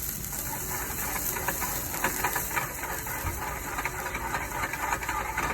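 Madeira wine sizzling and crackling hard in a hot sauté pan of chicken and mushrooms as it is flamed, the alcohol burning off: a steady hiss with many small pops throughout.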